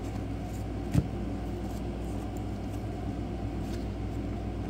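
A steady low mechanical hum, with faint rustles of trading cards being flipped and handled and a single sharp click about a second in.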